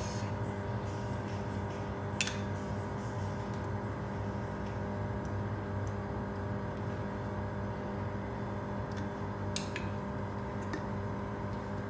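A steady hum of unchanging tones, with a few light clinks of a utensil against a pan or dish: one about two seconds in and a couple near the end.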